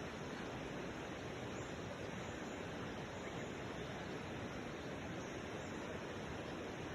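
Steady hiss of background noise, even throughout, with no distinct calls or events.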